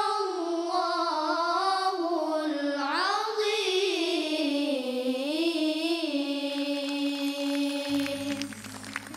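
Young boys' voices chanting an unaccompanied Quranic recitation melody, the closing phrase drawn out in long, slowly gliding, ornamented notes. The chant ends shortly before the end, and a low hum comes in.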